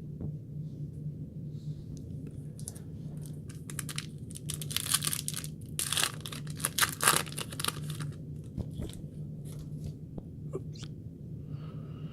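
A foil trading-card pack wrapper being torn open and crinkled, with a run of loud crackling about halfway through. A steady low hum runs underneath.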